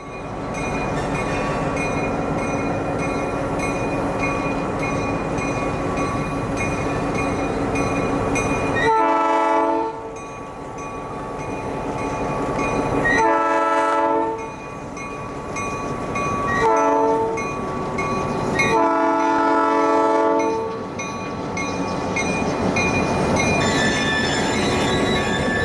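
A diesel freight locomotive approaches with its engine running and sounds its multi-note air horn in a long, long, short, long pattern, the standard grade-crossing signal. Near the end the locomotive passes close by, with engine and wheel noise.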